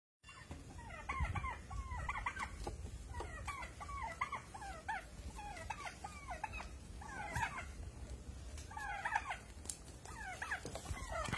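Turkeys calling as they fight: a string of short, wavering yelps in quick clusters, about one or two clusters a second, over a low rumble.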